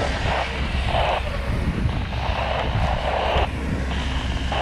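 Fire engine's diesel pump running steadily under load, with the hiss of water spraying from a hose nozzle.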